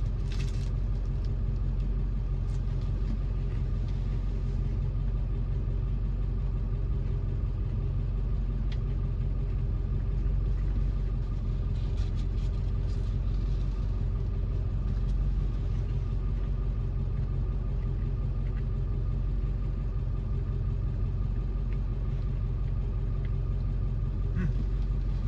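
Car engine idling: a steady low rumble with a constant hum, and a few faint clicks over it.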